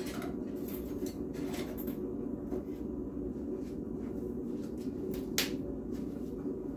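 Steady low background hum of a small workshop, with a few faint clicks and light scrapes and one sharper click about five and a half seconds in.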